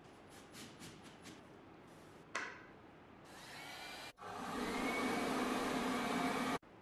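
Heat gun blowing, a steady rushing with a faint whine that rises as it comes up to speed, then cuts off sharply near the end. Before it, a few short scraping strokes and a sharp click.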